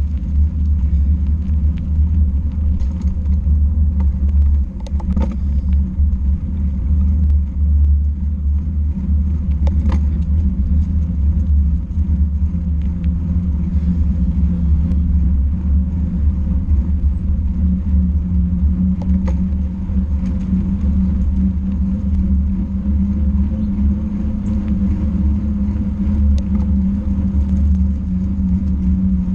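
Steady low rumble of a vehicle travelling along a paved path, wind buffeting the camera's microphone, with a constant low hum underneath and a few faint clicks and knocks from the ride.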